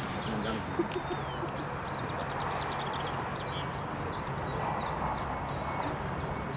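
Small birds chirping throughout in short, quick, high calls over a steady outdoor background rush.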